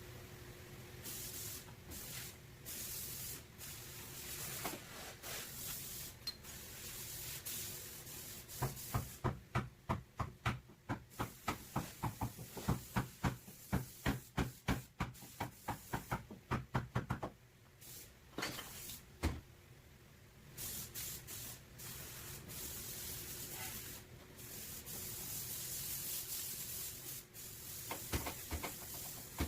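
Body hammer knocking on a car's sheet-metal back panel during dent repair: a run of sharp knocks about three a second for roughly nine seconds in the middle. Before and after the run there are stretches of hissing, rubbing noise.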